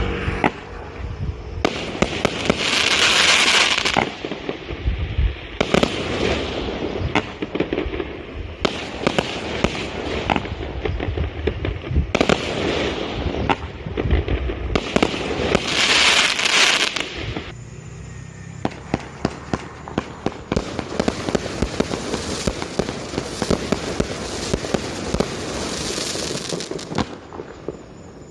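A 20-shot consumer firework cake going off: a steady run of sharp bangs and pops from the shots and their bursts. Two long loud bouts of crackling come a few seconds in and again just past the middle, with denser, softer crackle toward the end.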